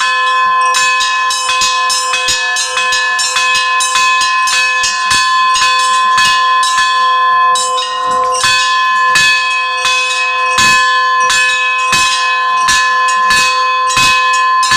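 Russian Orthodox church bells rung by hand in a continuous festive Easter peal: quick, even strokes, about four a second, over several bells ringing on steadily.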